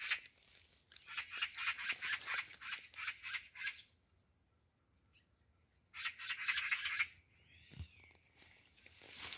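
Leaves, twigs and dry grass rustling and crackling as someone pushes through dense undergrowth, in a long bout and then a shorter one after a quiet pause. Near the end there is a short bird chirp and a low thump.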